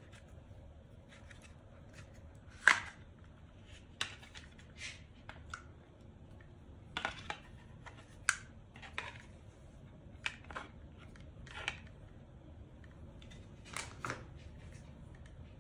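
Hands handling a DJI Osmo Pocket 3 gimbal camera, its plastic cover and packaging: scattered short plastic clicks and snaps with light rustling, the sharpest snap about three seconds in.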